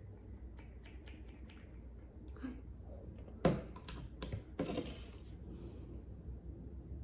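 Plastic pump-bottle head of a COSRX snail mucin essence: light clicks as the pump head is twisted to unlock it, then a sharp click about three and a half seconds in and a few more clicks with a short hiss as the pump is pressed to dispense the essence.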